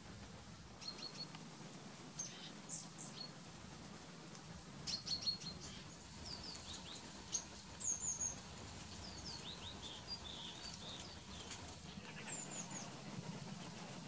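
Small songbirds calling, with many short, high chirps and brief trills scattered through, busiest in the middle. A faint, steady low hum runs underneath.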